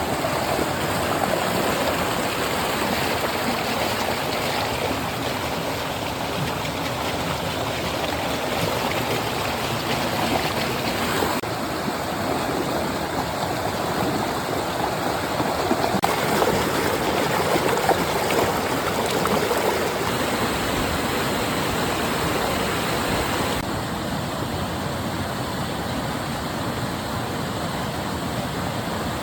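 Flowing stream water running steadily in a continuous rushing, babbling wash, its character shifting slightly a few times.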